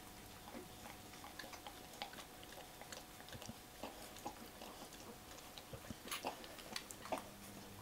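Nine-day-old English Springer Spaniel puppies moving and suckling: faint, irregular wet clicks and smacks.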